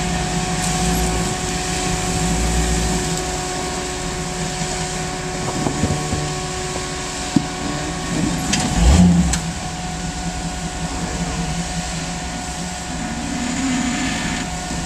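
Jeep CJ-6 engine running at low revs as it crawls slowly over boulders. There is a sharp knock a little after seven seconds and a louder heavy thump with a scrape around nine seconds in.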